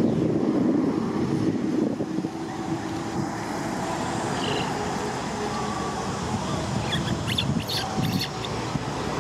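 Wind rumbling on the microphone, with a few short high-pitched squeaks from a baby macaque, once about halfway through and a small cluster near the end.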